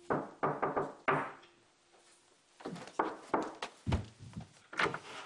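Knocking on a wooden front door, a quick run of raps, then footsteps across the room and the door being opened, with one heavier thump near the end.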